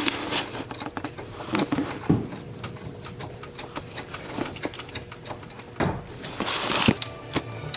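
Hand-tool and parts-handling noises from work in a car's engine bay: scattered metal clicks and taps, a louder knock about two seconds in, and a rustle near the end.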